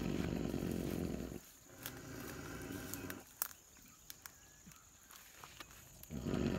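Sedated young tusker elephant breathing heavily: a low rumbling breath that cuts off about a second and a half in and starts again near the end, with a few light clicks in the quiet between.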